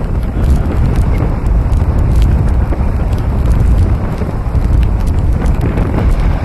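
Wind buffeting the microphone on a moving ferry's open deck: a loud, uneven low rumble, with scattered light clicks.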